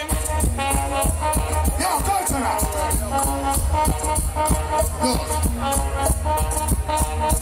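Live reggae band music over a concert PA, with a heavy bass line and a steady drum beat under pitched instrument and vocal lines.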